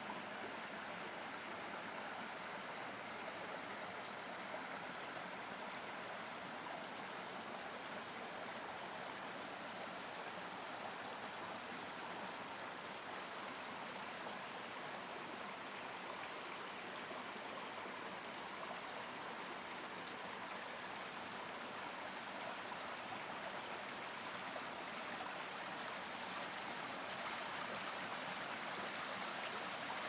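Water of a canyon stream running, a steady, even sound with no breaks.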